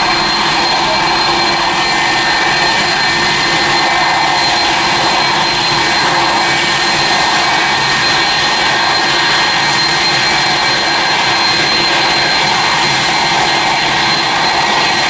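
Boeing 747's four jet engines at takeoff thrust as the jumbo jet lifts off and climbs away: a steady noise with a steady high whine in it.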